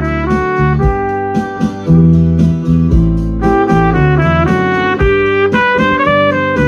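CarolBrass herald trumpet, a long-belled valve trumpet, playing a melody of notes that change several times a second over a backing accompaniment with piano.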